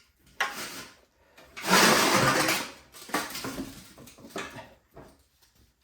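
Metal parts of a snowblower clattering and scraping as they are fitted back together by hand. The loudest is a scrape about two seconds in that lasts about a second, followed by a few lighter knocks.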